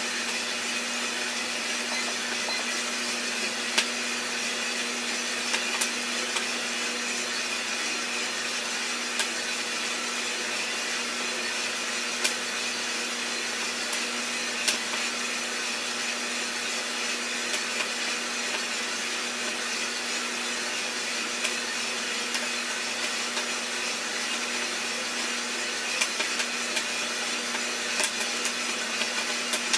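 Drum coffee roaster running steadily, its fan and motor giving a constant rushing noise with a low hum. Scattered sharp cracks of roasting beans pop over it, a few at a time, more frequent near the end: the beans are starting first crack.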